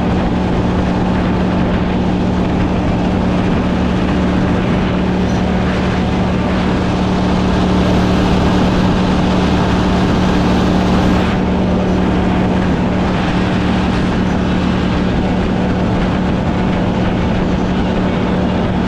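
Boat motor running steadily at a constant speed under way, a steady drone with rushing wind and water noise over it.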